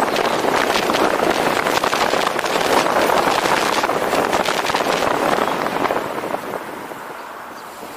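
Wind rushing and buffeting over a roof-mounted camera's microphone, with road and tyre noise from a car driving along. It gets quieter near the end.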